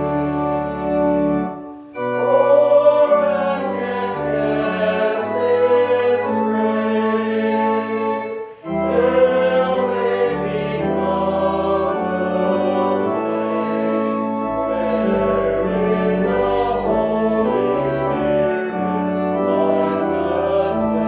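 A hymn sung by voices with organ accompaniment: held chords that change step by step under a wavering sung melody, with short breaks between phrases about two and eight and a half seconds in.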